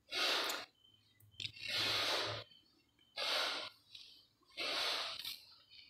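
A person breathing heavily close to the microphone: a run of about five breaths, each a short airy hiss, coming roughly every second and a half.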